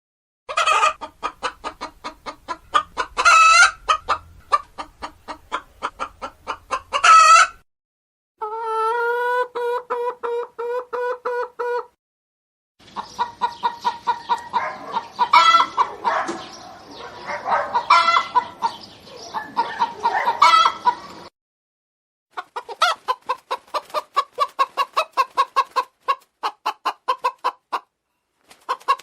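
Hens clucking in quick trains of short clucks, broken now and then by louder squawks, in several separate recordings cut together with brief silences between them. One recording, about eight seconds in, is a single long, steady drawn-out call instead of clucks.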